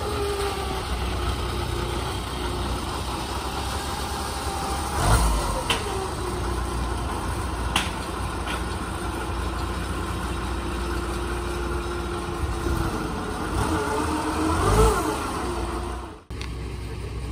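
Engine on a canal ferry carrying a combine harvester, running steadily with a low drone; its pitch rises and falls back twice, about five seconds in and near the end, with a few sharp clicks in between.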